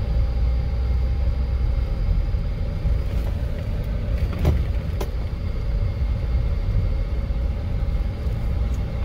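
Car engine and road rumble heard from inside the cabin while driving, steady and low, with two light clicks about halfway through.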